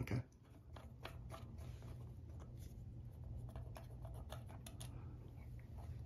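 Faint small clicks and scrapes of screws being turned out of a ceiling fan's metal switch housing cover, over a low steady hum.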